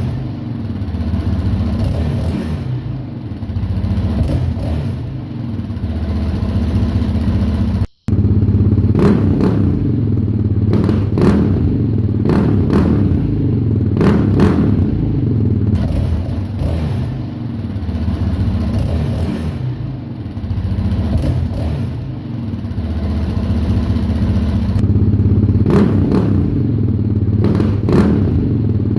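Yamaha Raptor 700's single-cylinder four-stroke engine running through a Yoshimura RS2 full aftermarket exhaust, its level rising and falling as it is revved now and then. Loud, inside a closed garage.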